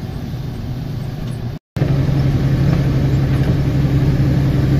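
Semi truck's engine running with road noise, heard from inside the cab while driving. About a second and a half in the sound drops out briefly, and after that the engine runs with a louder, steady low hum.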